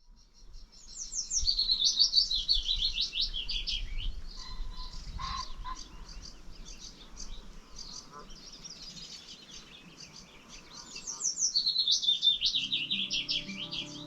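A songbird singing: two phrases of quick, high notes that fall in pitch, one near the start and one near the end, with fainter chirps between them.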